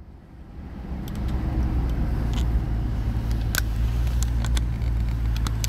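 A steady low rumble that fades in over the first second, with a few faint clicks.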